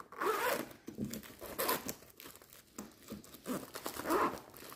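Clear plastic mesh zip pouch, with the papers of a kit inside, crinkling and rustling in irregular bursts as it is handled and closed.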